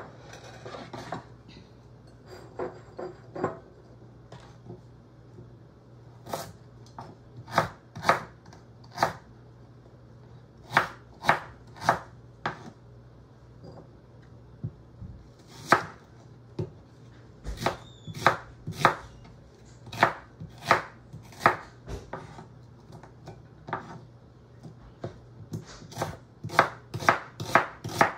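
Chef's knife chopping ginger and onion on a wooden cutting board: separate sharp knocks of the blade through the food into the board, irregular and sparse for the first few seconds, then louder and more frequent, about one or two a second.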